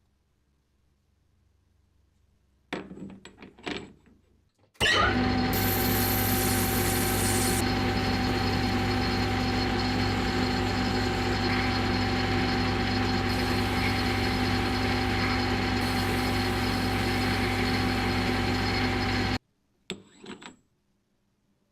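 Manual lathe's electric motor switched on and running steadily with a constant hum for about fifteen seconds, then cut off suddenly. A few clicks and knocks come before it starts and just after it stops.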